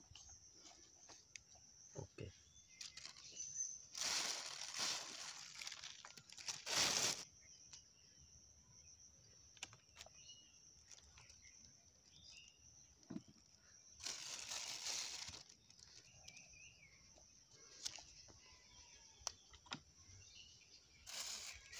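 A plastic bag rustling and crinkling in several short bursts of a second or so as hands scoop fish-feed pellets from it, with small clicks and handling noises between.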